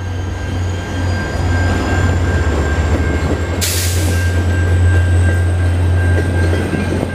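VIA Rail passenger train passing close by, an F40 diesel locomotive followed by Renaissance coaches: a loud, steady low rumble of the train and its wheels on the rails. A steady high tone runs throughout, and a brief hiss comes about halfway through.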